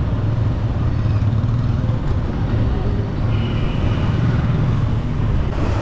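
Motorcycle engine running at a steady pace while riding through town traffic: a continuous low drone. A short steady high tone sounds about three seconds in.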